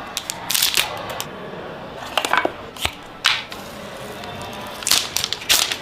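Phone box and packaging being handled and opened: short clusters of rustling and clicking, in four or five separate bursts, over faint background music.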